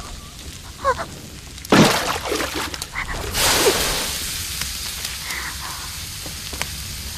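Fire flaring in a hot wok, with a sharp loud burst about two seconds in, then a loud hiss as water is dashed into the burning wok and it steams, fading over a second or two. A woman gives short cries early on.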